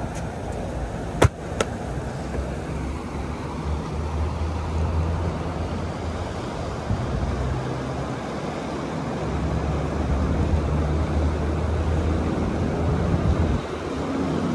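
Steady low rumble of a car on the move, with one sharp click about a second in.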